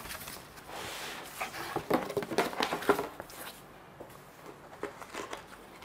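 A product box being opened by hand: packaging rustling, then a run of sharp clicks and knocks, dying down to quieter handling after about three seconds.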